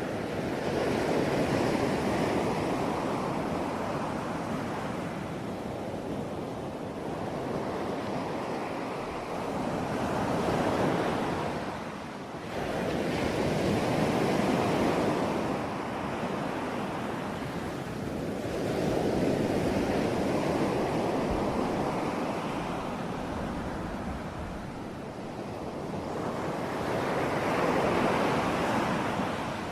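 Sea waves breaking and washing in. The surf noise swells and fades in about five surges, each one a few seconds apart.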